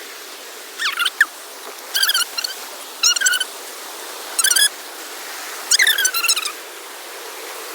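A bird giving short, squeaky calls, about five times roughly a second apart, over a steady rushing background.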